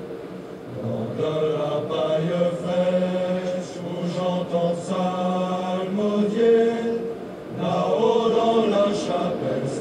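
Background music of a male choir chanting in slow, held notes, with short pauses between phrases near the start and about seven seconds in.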